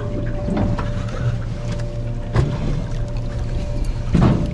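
Boat motor running with a steady hum and a thin steady whine, broken by a few thumps, the loudest near the end.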